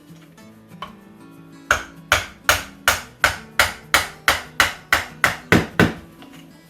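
About a dozen sharp hammer blows in an even rhythm, roughly three a second, starting a couple of seconds in and stopping near the end, over background music.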